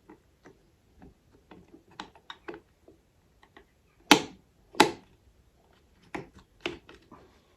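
Replacement metal slide plate clicking and tapping against a Singer 66K sewing machine's bed as it is worked into place, with two sharp, loud clicks about four and five seconds in and a few more near the end.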